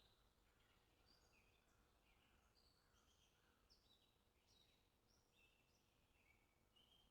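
Near silence, with faint, short high chirps repeating throughout.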